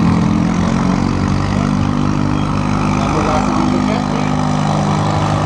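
Garden tractor engine running under load as it pulls a weight sled, a steady engine note that shifts slightly in pitch a few times.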